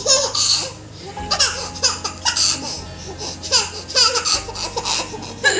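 A baby laughing in a string of short, repeated bursts.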